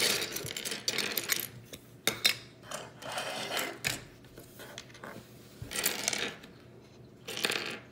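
Loose plastic Lego pieces rattling and clicking against each other and the tabletop as hands rummage through a pile of them, in several bursts with a sharp click about two seconds in.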